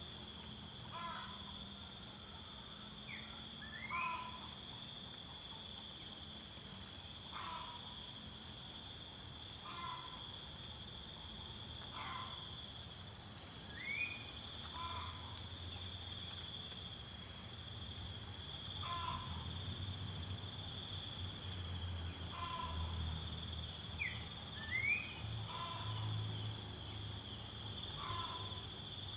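A steady high-pitched chorus of crickets or similar insects runs throughout. Over it a bird gives short calls every one to three seconds, a few of them with a quick upward sweep.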